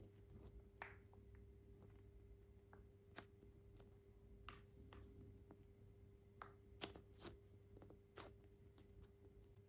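Near silence with a steady low hum, broken by faint, scattered clicks and crinkles of hands handling an object.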